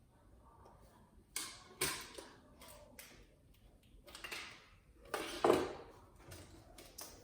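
Irregular clicks and clatters of plastic wiring-harness connectors and cables being handled inside a flat-screen TV. The loudest clatter comes about five and a half seconds in.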